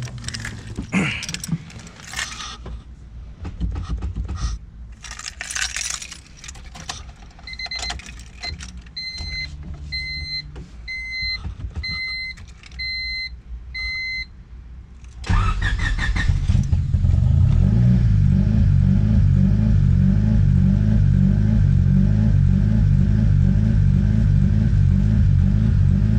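Keys jingling and rattling, then the Honda Civic's warning chime beeping about eight times at an even pace. About 15 seconds in, the stock single-cam four-cylinder engine cranks briefly, catches and settles into a loud idle, which the owner says has a slight idle surge.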